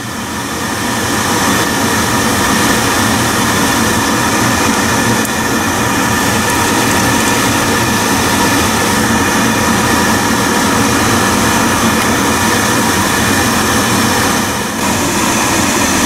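Riello oil burner running with its cover off, its blower and fuel pump making a steady, loud mechanical hum. The fuel line has just been bled of air.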